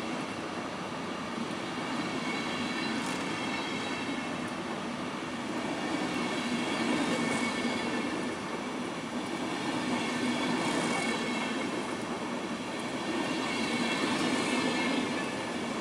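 Intercity passenger coaches rolling past, a steady rumble of wheels on rail with a faint high squeal from the wheels. A hiss swells about every three to four seconds as the coaches go by.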